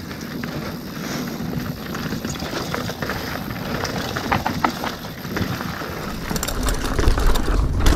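Mountain bike rolling down a dirt singletrack, with tyres crunching over the ground and the chain and bike rattling over bumps. Wind buffeting the microphone grows stronger about six seconds in as the bike picks up speed.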